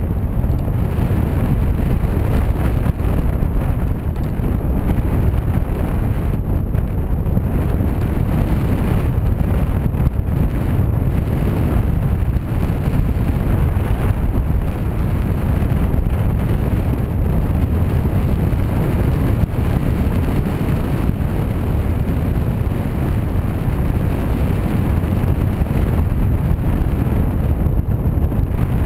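Airflow in paraglider flight buffeting the microphone of a camera carried by the pilot: a steady, loud, deep rumble of wind noise.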